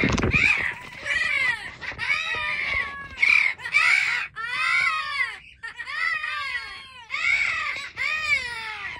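Amazon parrots calling: about a dozen short squawking calls in quick succession, each rising and falling in pitch, with short gaps between them.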